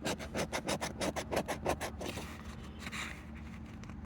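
A scratch-off lottery ticket being scratched in rapid back-and-forth strokes, which fade to a faint rubbing about halfway through.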